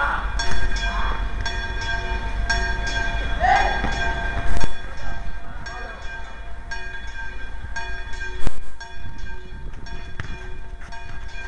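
Football kicked on an outdoor concrete court: two sharp thumps about four seconds apart, with a short shout just before the first. A steady high whine and low rumble run underneath.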